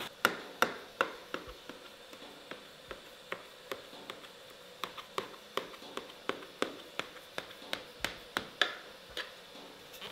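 A quick, irregular run of sharp taps of a kitchen utensil on a hard surface, about two to three a second, the loudest near the start.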